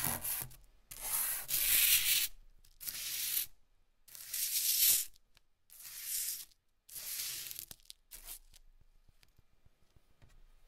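A lump of pineapple charcoal scraped back and forth over smooth heavy drawing paper: about seven scratchy, gritty strokes of uneven length. The strokes stop about eight and a half seconds in, leaving only a few faint ticks.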